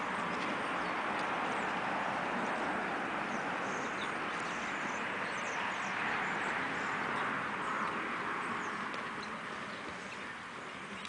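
Steady rushing noise that swells past the middle and eases off near the end, with the faint, soft hoofbeats of a horse trotting on arena sand under it.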